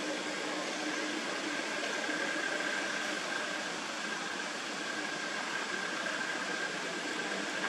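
Steady outdoor ambient hiss with a faint, steady high-pitched tone running through it.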